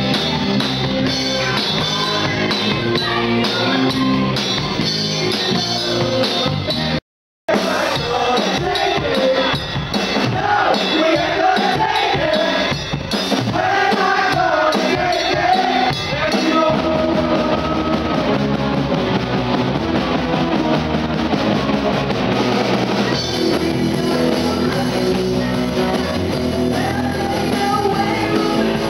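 Live rock band playing on stage, with drum kit, electric guitars and bass under a singer's vocals, heard from the audience. The sound cuts out completely for a moment about seven seconds in.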